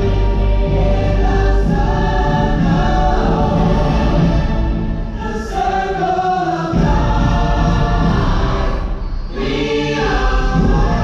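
Show soundtrack of a choir singing sustained notes over music, with two brief dips in loudness.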